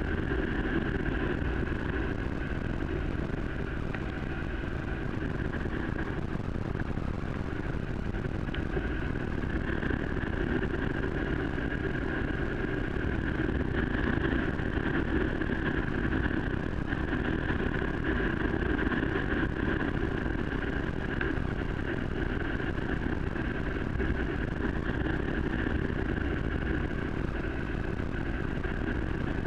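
Motorcycle riding downhill on a wet dirt road: a steady drone of engine and wind noise that holds an even pitch and level throughout.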